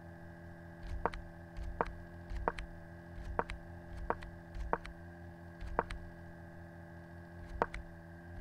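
A series of sharp clicks, roughly one a second and about nine in all, one for each move as a chess game is stepped through on a computer board. A steady electrical hum runs underneath.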